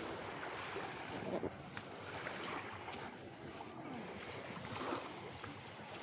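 Small waves of a calm sea washing onto a sandy beach, a steady wash that swells twice, with wind on the microphone.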